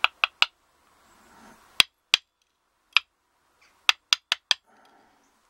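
Light metallic clicks and clinks as the small brass pins and springs of an American Lock Series 20 padlock are picked out of the cylinder with tweezers and set down in a wooden pin tray. About ten sharp ticks in irregular clusters: three near the start, two about two seconds in, one around three seconds, and a quick run of four near the end.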